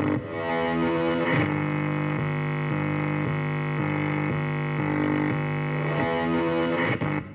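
Electric guitar played through distortion and effects: a rapidly stuttering chord at first, then from about a second and a half in a held low note with higher notes changing above it in steps. The sound cuts off suddenly near the end.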